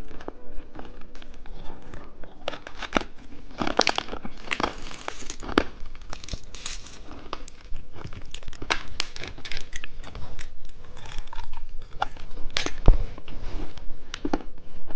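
Plastic candy wrappers crinkling and tearing, a dense run of irregular crackles and rustles.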